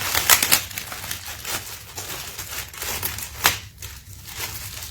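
Packaging being handled while unpacking a box: irregular rustling and crinkling, with a sharp tap about three and a half seconds in.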